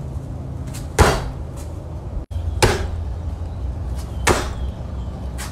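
Kicks landing on a hanging heavy punching bag: three sharp thuds about a second and a half apart, over a steady low rumble.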